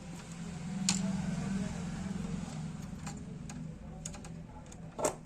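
Sharp plastic clicks of buttons being pressed to bring an LED TV out of standby, one about a second in and another near the end, over a low steady hum.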